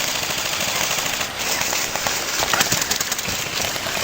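Airsoft guns firing rapid bursts: a dense, crackling stream of quick clicks, thickest about two and a half seconds in.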